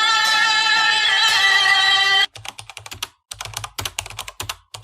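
Song with held sung notes that cuts off abruptly a little over two seconds in. It is followed by a quick, irregular run of sharp clicks or taps.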